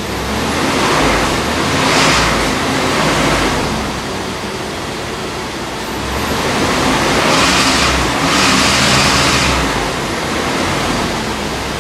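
Dodge D250 pickup engine running on wood gas with no carburetor, revved up twice and let back down, each rev swelling into a rushing noise for a few seconds.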